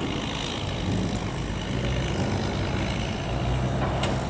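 A barge's engine running steadily with a low drone, and a sharp click about four seconds in.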